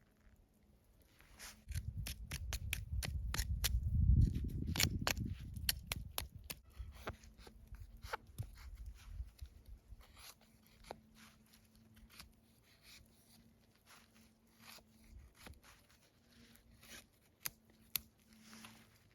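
Cold Steel Voyager XL folding knife cutting, a long run of sharp clicks and cracks, with heavy low thumps of handling from about two to six seconds in.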